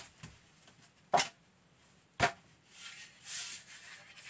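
A long wooden board being handled: three sharp knocks about a second apart, then a brief rustle near the end.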